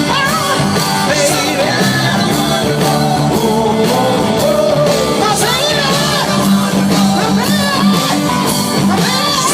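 Live rock band playing, with a lead vocalist singing and shouting over drums, bass and guitar.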